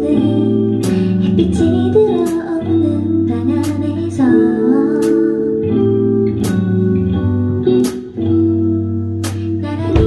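A woman singing a song live into a microphone over instrumental accompaniment of held chords, with a soft regular beat about every second and a half.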